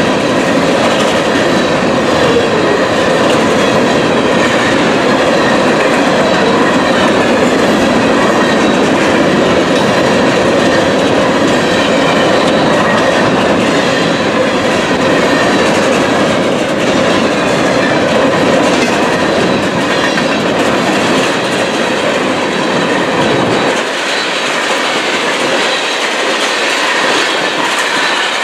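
Empty coal cars of a freight train rolling past close by: a steady, loud rumble of steel wheels on rail with clickety-clack over the joints. About three-quarters of the way through, the low rumble falls away as the cars recede.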